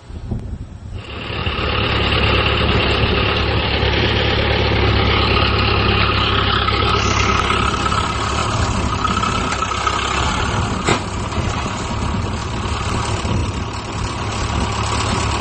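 Ford tractor engine running steadily under load as the tractor drives a pole strapped across its rear tyre to climb out of a mud hole; the engine sound comes in about a second in. One short knock about two-thirds of the way through.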